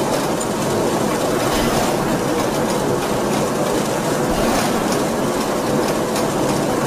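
D53K CNC radial-axial ring rolling mill running as a red-hot steel ring turns between its rolls: a steady mechanical rumble with faint clatter.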